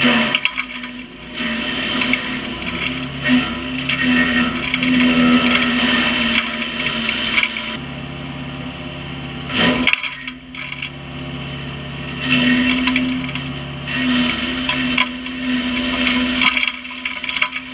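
Small 15 hp wood chipper running and chipping oak branches: a steady engine note with crackling and splintering as the wood is fed through. There is a single sharp crack about ten seconds in.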